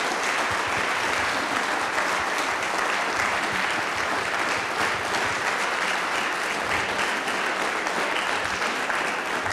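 Audience applauding: a steady, dense clapping that holds at one level throughout.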